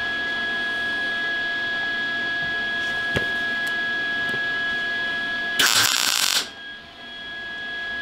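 A steady hum with a faint high whine, then about five and a half seconds in a single loud crackling burst just under a second long: a Lincoln Electric MIG welder laying one spot weld on the sheet-steel rear quarter panel of a 1966 Impala, part of a stitch weld done a few spots at a time to keep the panel from warping.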